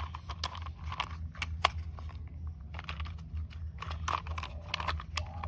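Scattered sharp clicks and light rattling of hard plastic toy parts handled as small plastic wheels are pressed onto a toy truck's chassis, over a steady low hum.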